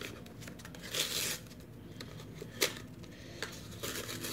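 A CFL bulb's packaging being pulled open by hand: a tearing rasp about a second in, a single sharp click a little past halfway, and small crinkles near the end.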